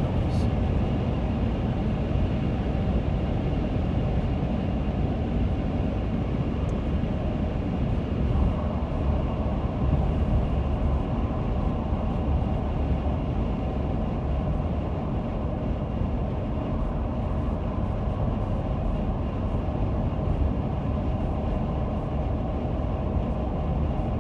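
Steady wind and road noise inside the cabin of a moving 2017 Toyota Sienna minivan, a constant low rush. The owner holds this wind noise to be excessive, a fault the dealer first called normal.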